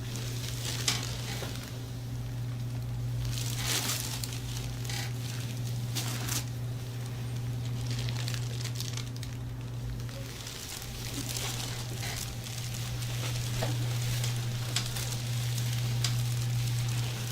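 Hands massaging a person's back and shoulders, palms rubbing over skin and clothing in a soft, scratchy rustle with small crackles. A steady low hum runs underneath.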